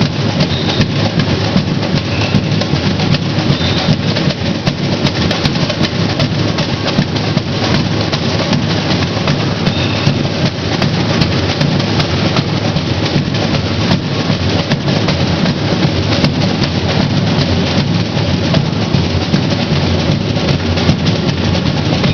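Samba school drum section (batucada) playing a continuous, dense samba rhythm, led by the deep beat of surdo bass drums with other drums and hand percussion on top.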